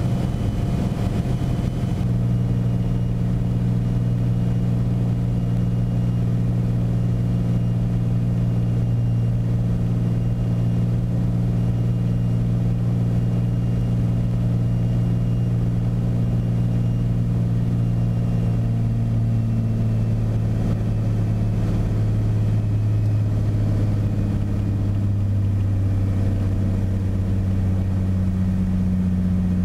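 Beechcraft Bonanza's piston engine and propeller droning steadily in the cabin on final approach. The drone drops a little in pitch in the last third as power comes back for landing and the aircraft reaches the runway.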